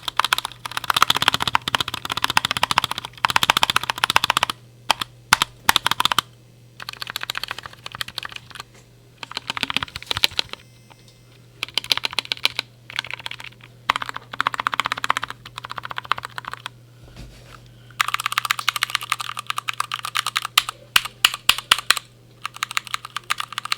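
Fast typing on a Glorious GMMK Compact mechanical keyboard fitted with Gateron Brown tactile switches, in bursts of a few seconds with short pauses between them. The keystrokes sound sandy, a scratchiness from the switches not yet being lubed.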